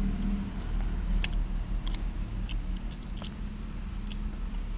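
A person eating sticky rice: chewing, with scattered sharp clicks of a metal spoon against the paper wrapper, over a steady low hum.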